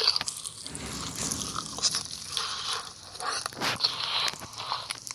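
Crunchy food being bitten and chewed close to the microphone, with irregular sharp crunches and crackles.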